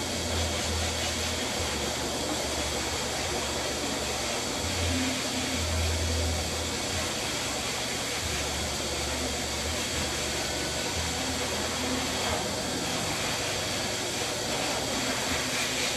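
A blower running steadily with a rushing-air sound, and a low hum underneath that comes and goes.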